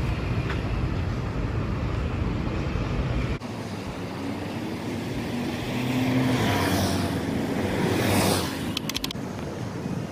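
Double-decker bus driving past on the road: engine hum and tyre noise that swell to their loudest a few seconds in and then fade. Before it, a low traffic rumble; near the end, a quick run of clicks.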